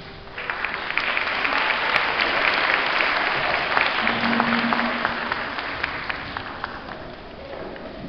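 Audience applauding in a hall: the clapping starts about half a second in, holds strong for several seconds, then thins out and dies away near the end.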